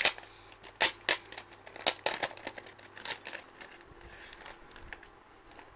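A clear plastic wrapper and paper envelope crinkling and crackling as they are handled and opened, in sharp crackles over the first three seconds, then quieter rustling.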